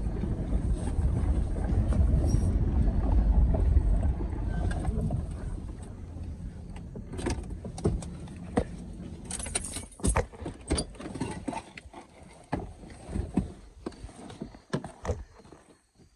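Car driving with a low rumble for the first few seconds, which fades out; then a string of scattered clicks and knocks, like keys and handling inside the vehicle.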